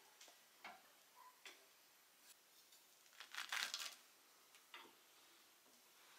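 Faint scattered clicks and knocks from the steel rod linkage and welded frame of a homemade table saw being worked by hand, with one brief louder noise about three and a half seconds in.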